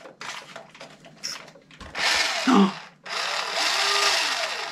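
Small electric drive motor of a vintage Nikko RC car whirring with its wheels spinning in the air. A few clicks of handling come first, then a short burst of motor about two seconds in, then steady running from about three seconds in. The motor has come to life after the batteries were turned in their holders to make contact.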